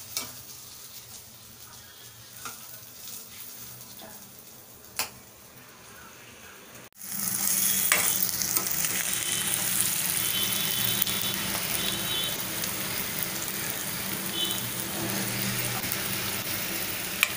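Boiled eggs frying in oil and onion-chilli paste in a steel pan, sizzling as they are stirred with a spoon. It is faint at first, with a few light clinks of the spoon, then suddenly much louder about seven seconds in.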